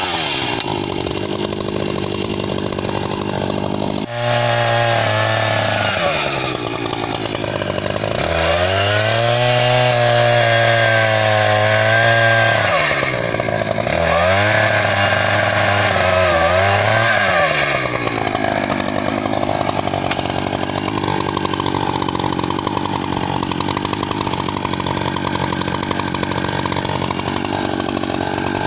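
Echo CS-590 Timber Wolf two-stroke chainsaw cutting logs. It revs to full throttle three times, holds there for a few seconds each time, then falls back. For roughly the last ten seconds it runs at a lower steady speed, settling to idle.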